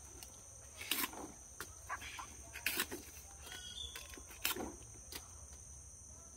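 A serrated knife cutting through the stalks of large machán leaves: three sharp hacks roughly a second and a half to two seconds apart, with leaves rustling between them.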